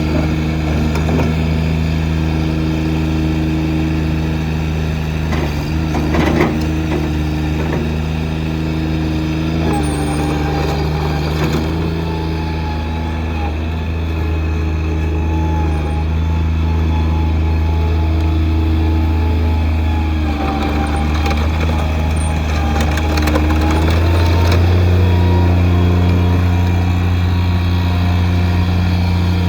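Engine of an MT85 walk-behind skid steer loader running steadily, with a higher whine that comes and goes and a few clanks. About 24 seconds in the engine speeds up and gets a little louder.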